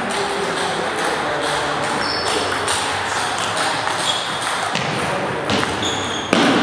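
Table tennis balls clicking, sharp short hits of ball on bat and table scattered through a hall's steady background noise. Near the end a rally starts at the near table, and its hits are the loudest, the strongest just before the end.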